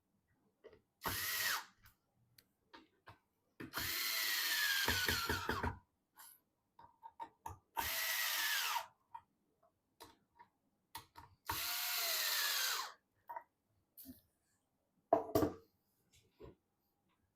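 Electric screwdriver driving screws in four short runs, its motor whine rising and falling away each time, with the screw juddering as it seats during the longest run. Small clicks and handling knocks come between the runs, and a sharper knock near the end.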